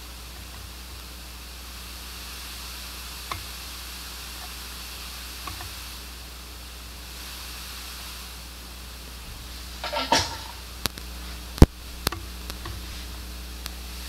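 Steady high-pitched hiss from a Pioneer GM-D8604 class-D amplifier playing through a speaker with no input connected, over a low steady hum. The hiss grows a little as the gain is turned up: it is the amplifier's noise floor, which the gain setting affects. Several sharp clicks and knocks come near the end, the loudest about two-thirds through.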